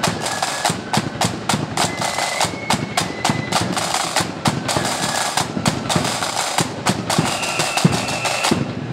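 A marching flute band playing: flutes over fast, rolling side-drum beats. The drumming breaks off just before the end.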